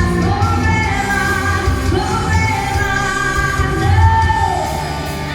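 Live band music during a sound check: a singer's melody over amplified bass notes, ending on a long held note that falls away about four and a half seconds in.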